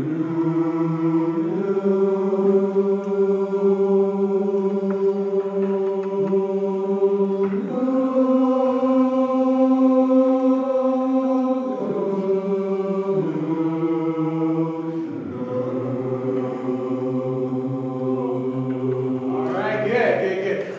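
Men's chorus singing a vocal warm-up of long-held major triads, the whole chord moving to a new pitch every few seconds.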